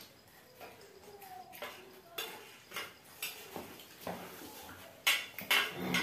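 Stainless steel plates and a spoon clinking and scraping as people eat, in scattered light clicks, with a cluster of sharper, louder clinks near the end.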